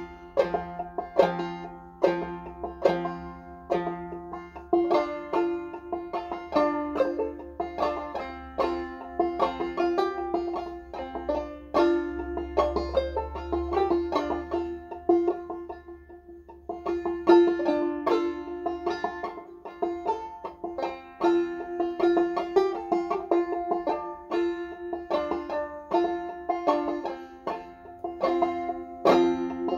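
Banjo played clawhammer style: a steady, rhythmic stream of plucked notes and brushed strums over a recurring drone note, with a brief softer moment about halfway through.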